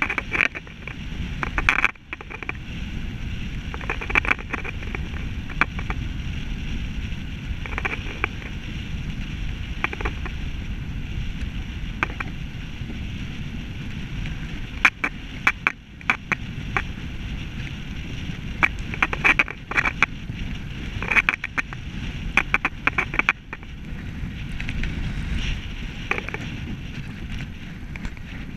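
Bicycle riding over tarmac: a steady low rumble of tyres and wind on the handlebar-mounted microphone, broken by irregular sharp clicks and rattles.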